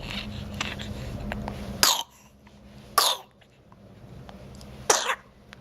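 A young child with a cold coughing: three short, sharp coughs a second or two apart, the last one doubled.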